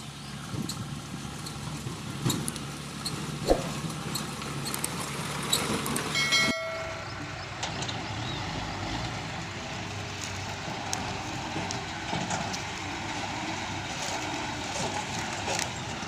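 Diesel engine of a tipper lorry running as the truck drives slowly over rough dirt ground. A brief horn toot comes about six seconds in, and the sound then cuts abruptly to another stretch of the truck running.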